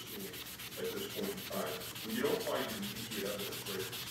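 White sponge scrubbing the metal burner cap of a gas stove in quick back-and-forth strokes, a continuous scratchy rubbing.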